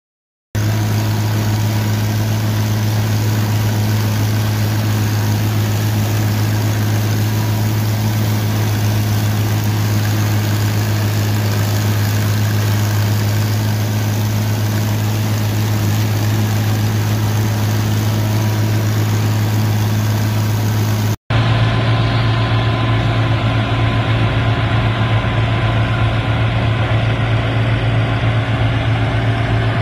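International Harvester 656 Hydro tractor running steadily under load, driving a New Holland 38 flail chopper through sorghum sudan grass, a continuous loud drone of engine, flail rotor and blower. A brief break about two-thirds of the way through, then the same steady drone resumes.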